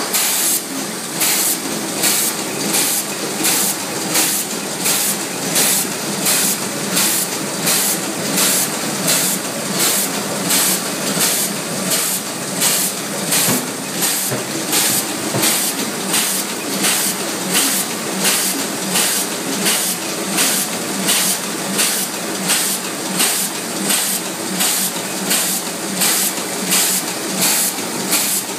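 Ishida machine running in a steady cycle: a short hiss of air repeats evenly, about once a second, over a continuous mechanical hum.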